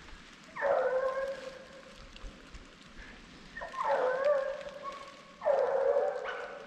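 A hunting hound baying: three long, drawn-out bawls a couple of seconds apart, the voice of a hound trailing a bear's scent track.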